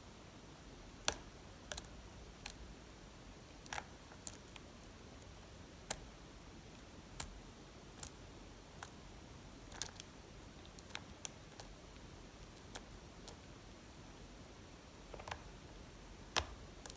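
Lock pick working the pins of a Lockwood 334B45 pin-tumbler lock: small, irregularly spaced metallic clicks and taps as pins are lifted and set under tension, with a sharper click about a second in and another near the end.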